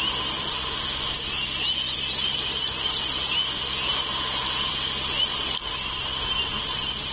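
Outdoor ambience on a bald eagle nest camera's microphone: a steady high-pitched hiss with faint repeated chirps in it, over a low steady electrical hum.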